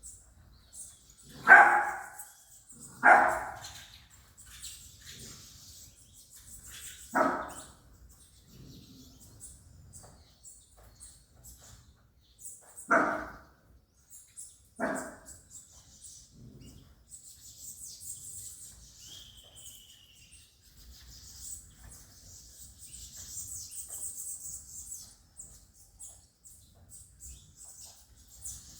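A dog barking in single barks, about five of them spread over the first half. Faint high chirping of small birds runs between the barks and through the quieter second half.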